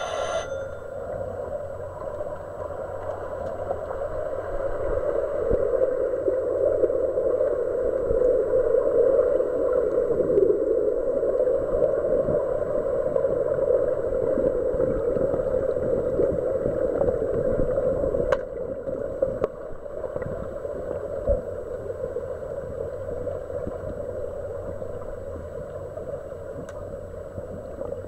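Muffled underwater noise of pool water churned by swimmers' fins: a dense rushing with fine bubbly crackle, heard through an underwater camera's microphone. It grows louder over the first several seconds and drops suddenly about 18 seconds in, with a couple of sharp clicks around then.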